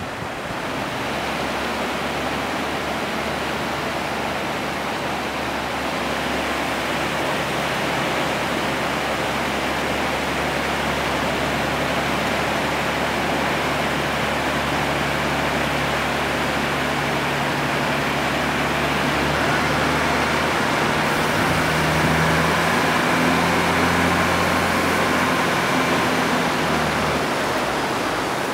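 A river in flood rushing past, a steady dense roar of water. A low steady hum runs underneath and grows a little louder about two-thirds of the way in.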